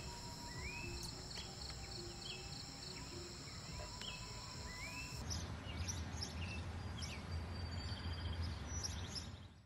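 Morning outdoor ambience of insects and birds: a steady high insect trill and a bird giving short rising calls about once a second, over a low rumble. About five seconds in the ambience changes abruptly: the insect trill stops and fainter bird calls go on over a stronger low rumble.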